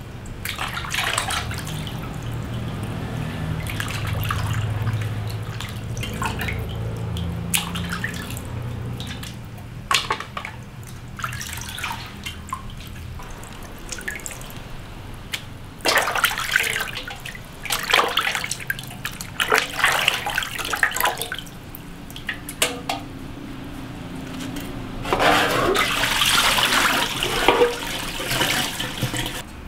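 Water splashing and sloshing in an aluminium basin as skinned frogs are rubbed and rinsed by hand, in irregular bursts that are heaviest near the end.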